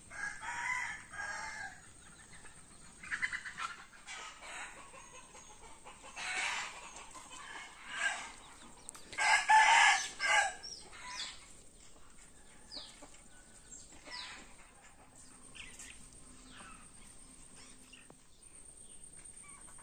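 Live country chicken squawking and clucking in repeated loud bursts while held upside down by its legs, the loudest and longest outburst about nine to eleven seconds in. Fainter short chirps follow.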